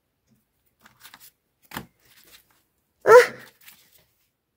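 Faint rustling and clicking of old paper being handled, then about three seconds in one short, loud vocal sound.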